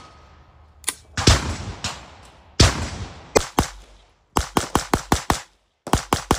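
Spikes Tactical AR9 9mm pistol firing: a few single shots about a second apart, each with a long ringing echo, then fast strings of shots, about five a second, broken by a brief pause.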